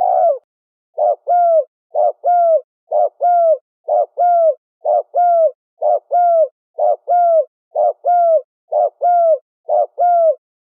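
Spotted dove cooing in the rapid 'thổ sấm' style. One longer coo comes at the start, then about ten quick two-note coos at roughly one a second, each a short note followed by a longer falling note.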